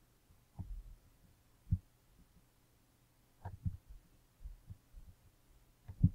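Faint, irregular low thumps and knocks over a steady low electrical hum: desk and microphone handling noise as the narrator draws on screen with a mouse or pen.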